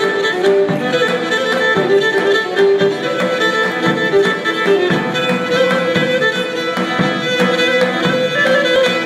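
Pontic Greek folk dance music, a bowed string instrument playing a busy melody with many short strokes over sustained tones.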